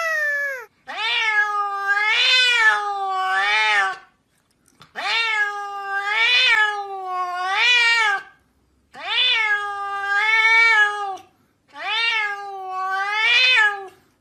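Domestic cats meowing. A long, falling meow ends under a second in, then a lower-pitched cat gives a run of long, wavering meows in four bouts of two or three calls, with short pauses between the bouts.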